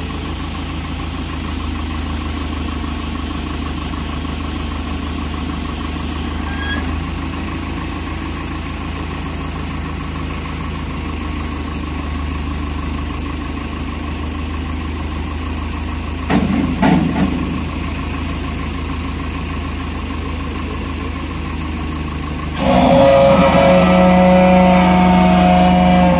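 Tractor engine idling steadily under the raised telescopic front loader, with a brief louder burst about two-thirds of the way in. Near the end it gets much louder with a steady whine as the loader hydraulics tilt the raised bucket.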